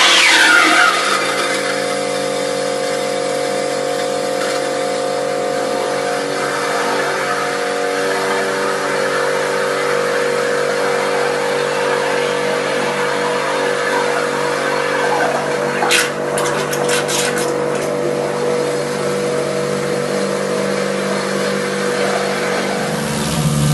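Drain-clearing machine running steadily with its hose worked down a toilet bowl: a motor tone over a rushing noise. A short run of clicks comes about sixteen seconds in, and the sound gets deeper near the end.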